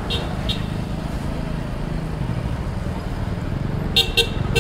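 Honda CBR250R single-cylinder engine running at low speed, heard from the rider's seat as a steady low rumble. Two pairs of short sharp clicks come at the start and again about four seconds in.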